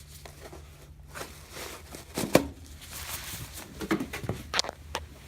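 Handling noises: rustling with scattered clicks and knocks, the loudest a sharp knock a little over two seconds in, over a low steady hum.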